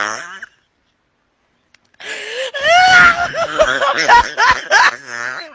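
A cartoon character's exaggerated vocal outburst. A held, wavering scream fades out, then after about a second and a half of silence comes loud, broken laughter with swooping, rising squeals.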